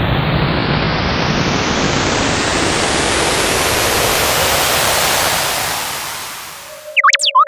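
Rocket blast-off sound effect: a loud hissing roar that rises steadily in pitch and fades out near the end. In the last half second, quick sliding whistle tones begin.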